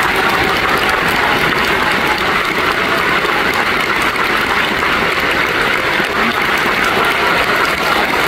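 A large theatre audience and the dancers on stage applauding together: dense, steady clapping throughout.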